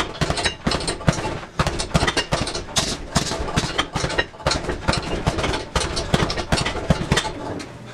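Gloved punches hitting a heavy bag, several blows a second in uneven flurries, stopping shortly before the end.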